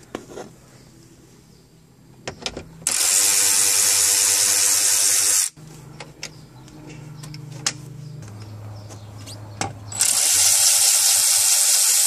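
Cordless ratchet spinning out 7 mm screws from the steering column trim, in two steady runs of about two and a half seconds each, several seconds apart. Small clicks of handling come in between.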